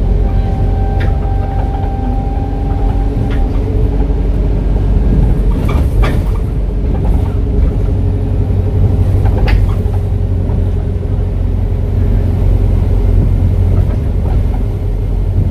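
Diesel-converted ADL Enviro 400H double-decker bus running with a steady deep rumble. A thin whine is heard over the first few seconds, and a few short sharp rattles or clicks come through along the way.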